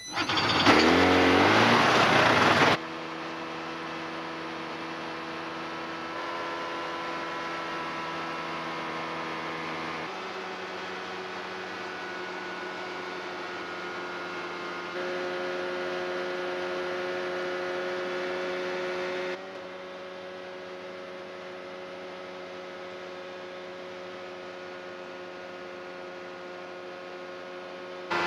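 Light aircraft engine started: it catches and its pitch rises as it revs up. After a cut comes the steady drone of the engine and propeller in flight, heard from inside the cockpit, its level and pitch shifting at several abrupt cuts.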